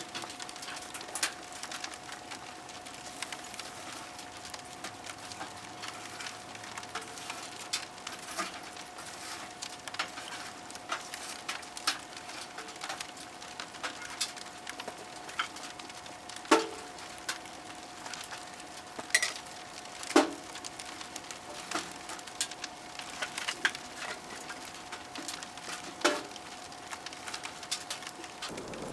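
Wood burning in a wood stove, crackling and popping with scattered sharp snaps, a few of them louder. A faint steady high tone runs beneath and stops shortly before the end.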